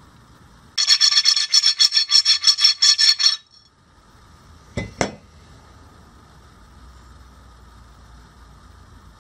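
Hand filing: about a dozen quick, even rasping strokes, roughly five a second, with a metallic ring, lasting two and a half seconds. A second or so later come two sharp knocks in quick succession.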